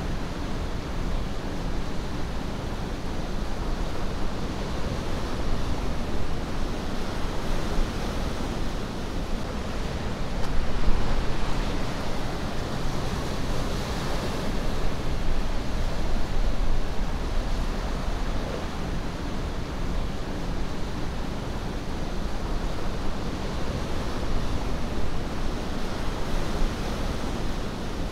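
Ocean surf washing over rocks: a steady rush of breaking waves that swells louder a couple of times.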